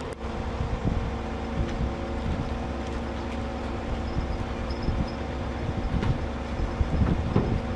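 Heavy vehicle engine running steadily, a droning hum, with low rumbling noise underneath.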